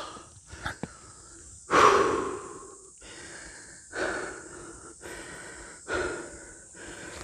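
A hiker's heavy breathing: three loud, hard exhales about two seconds apart, the first and loudest about two seconds in. He is out of breath from climbing in the heat.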